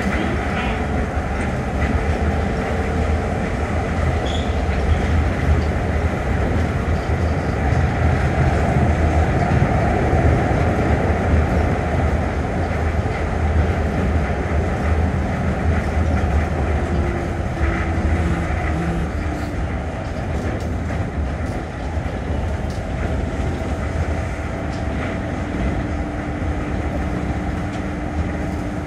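Osaka Metro New Tram 200-series rubber-tyred automated people mover running steadily, heard from inside the car: a continuous low rumble from its wheels on the guideway, with a faint motor hum that settles into one steady tone in the second half.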